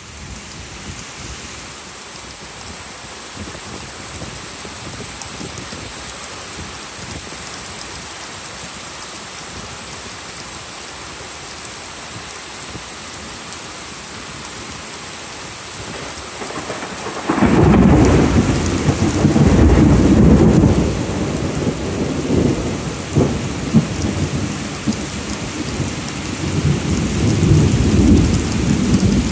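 Heavy rain pouring steadily as an even hiss; a bit over halfway through, a loud, deep roll of thunder comes in and keeps rumbling, swelling and fading, with a few sharper cracks.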